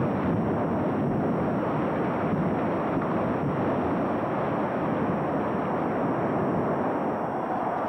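Distant rumble of a dynamite building implosion and the collapse: a continuous low rumble with no separate blasts standing out.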